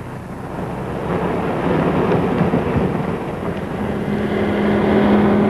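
An ambulance approaching along a road, its engine and road noise steadily growing louder. About four seconds in, a steady low hum joins the sound.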